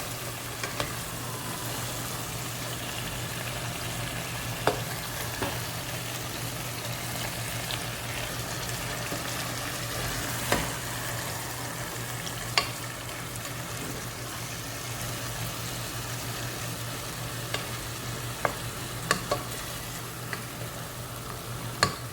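Marinated chicken pieces frying in olive oil in a pan, a steady sizzle under a low hum, with a few sharp clicks of a spatula against the pan as the pieces are turned.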